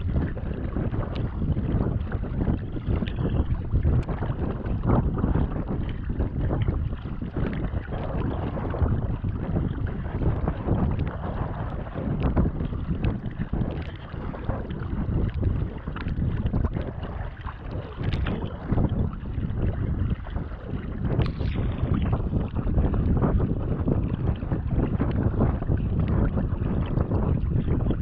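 Wind rumbling and buffeting against the microphone of a camera on a sea kayak's deck, with the splashes of double-bladed paddle strokes and choppy water against the hull coming through irregularly.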